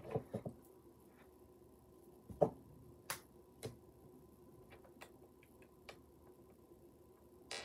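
Scattered light clicks and taps of small plastic pieces being handled: a hermit crab food cup and container. There is a cluster of quick taps at the start, one sharper knock about two and a half seconds in, then single clicks about a second apart.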